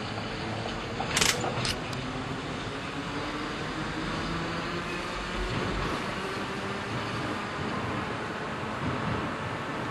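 Eizan Electric Railway electric railcar running away along the track, a steady rumble with a faint hum that drops slightly in pitch. Two sharp clicks come about a second in.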